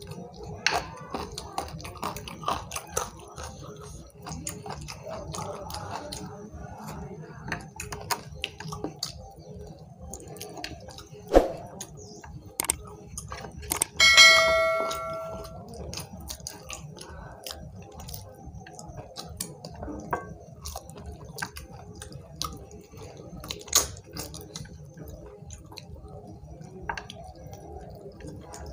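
Two people eating rice and curry with their hands: chewing, lip smacks and fingers working food on the plates, with many small clicks. About halfway through comes a short bright chime, the sound effect of a subscribe-button animation.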